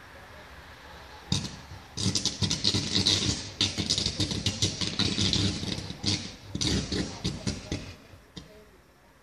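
High-voltage cable arcing as it burns: a rough, rapid crackling with a low buzz that breaks out about a second in, runs on in surges, and dies down near the end.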